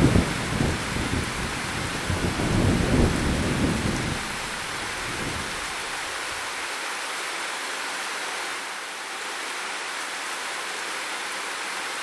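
Steady heavy rain with rolling thunder: a low rumble fades away over the first few seconds, leaving the even hiss of rain.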